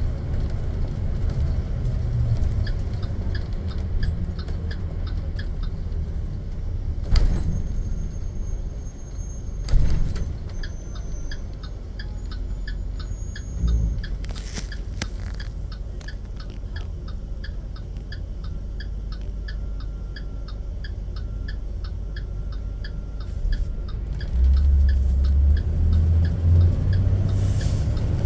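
School bus engine running with a steady low rumble in the cab as the bus drives along, with a few sharp knocks and rattles. An even clicking about two to three times a second sets in about ten seconds in, and the engine rumble grows louder near the end.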